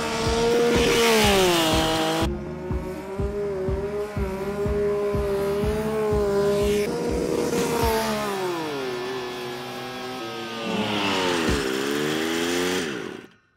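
Small 4-horsepower LiquidPiston X-Mini rotary engine on a go-kart running at high revs, its pitch sliding down each time the kart goes past, several times. The sound cuts off suddenly near the end.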